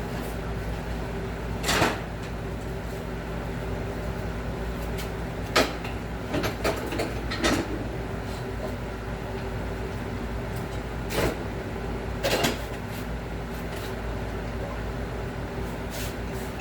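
Scattered knocks and clunks of steel tubing and tools being handled in a workshop, a few seconds apart, over a steady low hum.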